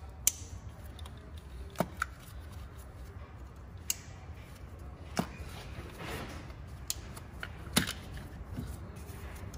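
Scattered sharp plastic clicks and taps, about six in all, as a flathead screwdriver pries open the locking clips on ignition coil wiring connectors, over a steady low hum.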